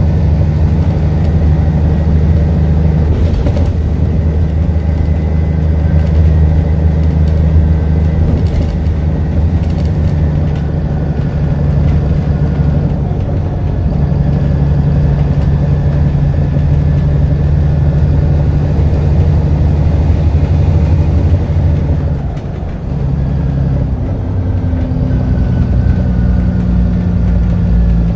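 Alexander Dennis Enviro400 double-decker bus's diesel engine heard from inside the moving bus: a loud, steady low drone with the exhaust blown. About three quarters of the way through the note dips briefly and settles at a different pitch.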